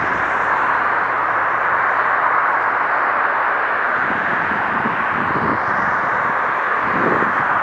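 Electric passenger train running along the line in the distance: a steady rushing noise, with low rumbles rising in the last few seconds.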